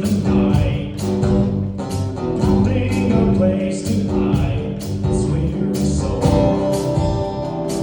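Live worship band music: a song with singing and guitar over a steady beat.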